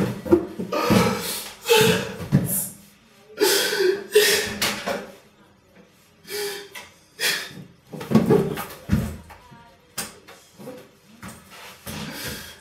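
People's voices talking and exclaiming in short bursts, with a door being opened.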